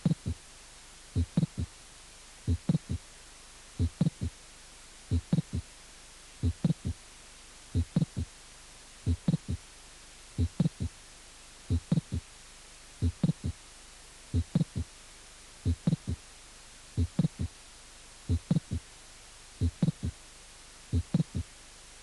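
Recorded heart sounds at about 45 beats a minute: each beat is a group of three short low sounds, the first and second heart sounds with a late systolic non-ejection click between them. Such a click is typical of mitral valve prolapse.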